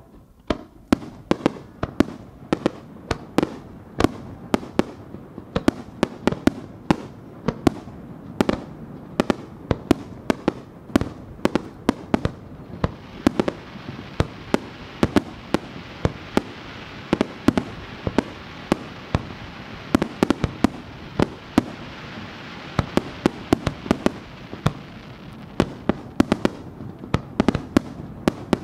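A rapid-fire sequence of aerial fireworks shells launching and bursting: a dense string of sharp bangs, several a second. A steady crackling hiss joins in about halfway through and fades near the end.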